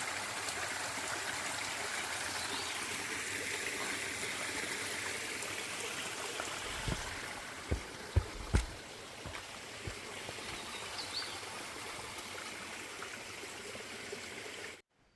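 A stream running steadily, with a few short low knocks about seven to nine seconds in.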